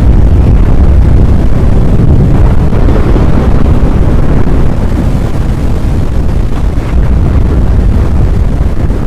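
Strong wind buffeting the microphone, a loud continuous low rumble, easing slightly about halfway through.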